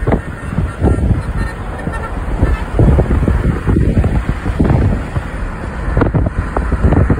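Moving car's road and wind noise, with wind gusting irregularly over the phone's microphone at the side window.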